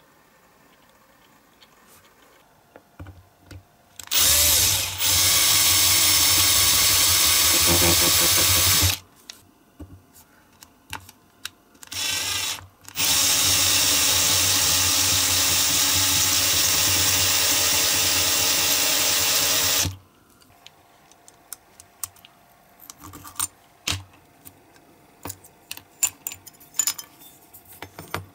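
Power drill running as it drills out the rivet post on a diecast toy car's metal base: one long run of about five seconds, a short burst, then a second run of about seven seconds. Light clicks and taps of the small metal parts being handled follow.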